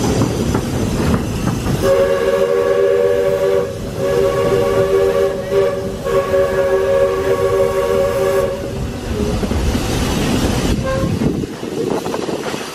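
Steam locomotive's chime whistle blowing three long blasts back to back, each a steady chord of several notes, over the rumble and clickety-clack of the train running on the rails.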